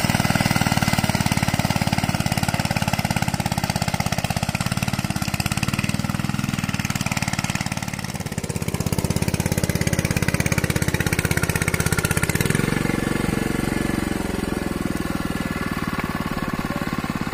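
Two-wheel hand tractor's single-cylinder diesel engine running with a fast, steady chug while ploughing. The sound dips briefly about eight seconds in, and the note turns deeper about twelve seconds in.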